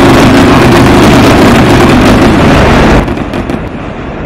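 Fireworks barrage: a dense, continuous rumble of overlapping bursts with crackling. It drops in level about three seconds in and cuts off abruptly at the end.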